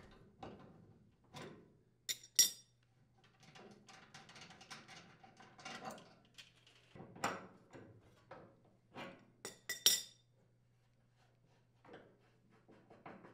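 Scattered metal clinks and clicks of wrenches and pliers on the dryer's gas supply line fitting as the flex line is disconnected and the fitting unscrewed. The loudest clinks come about two and a half seconds in and again about ten seconds in.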